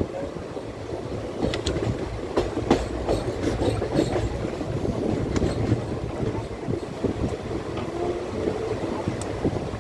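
Passenger train running, heard from aboard a carriage: a steady rumble with irregular clicks and knocks of the wheels over the track, busiest in the first few seconds.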